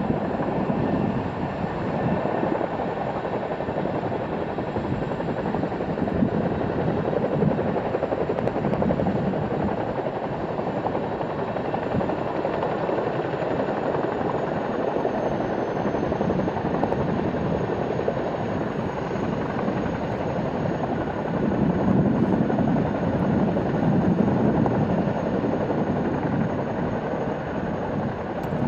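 Boeing CH-47 Chinook tandem-rotor helicopter running close by: a steady rotor beat and engine noise, with a thin high turbine whine above it, as it hovers low and settles onto the ground. The rotor noise swells for a few seconds about three quarters of the way through.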